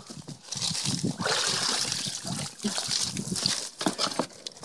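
Seawater sloshing and trickling as a Ponar grab sampler is hauled up out of a hole in the sea ice, with a few light knocks from the metal grab and its line.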